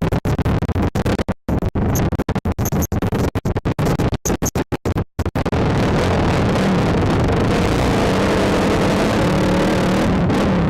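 ATV engine running hard while riding in sand. For the first five seconds or so the sound keeps cutting out in rapid, choppy gaps, then it runs steadily.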